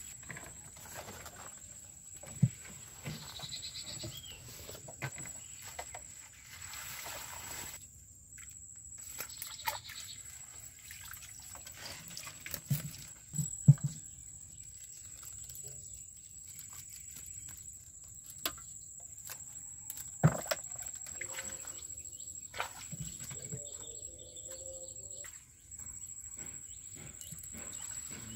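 Handling of a wet bamboo fish trap on a wooden boat: scattered knocks and thumps, the loudest about halfway through, with water splashing. A steady high insect drone runs underneath.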